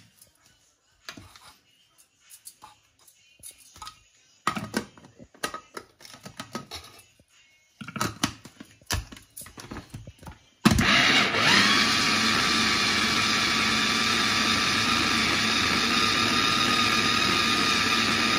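Light clicks and rustles of fresh herbs dropped into a plastic chopper bowl and the lid being fitted. About ten seconds in, a small electric mini chopper's motor starts, its pitch rising briefly as it spins up. It then runs steadily, grinding coriander and mint for chutney.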